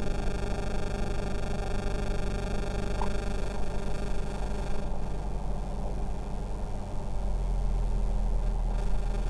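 Mooney M20J's turbo-normalised four-cylinder Lycoming IO-360 running steadily as it warms up, heard from inside the cockpit. About seven seconds in the engine grows a little louder and deeper.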